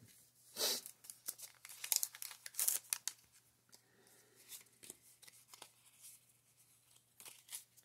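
Foil booster-pack wrapper crinkling loudly as it is opened and the cards are pulled out, then quieter rustling and light clicks of the trading cards being shuffled and fanned in the hands.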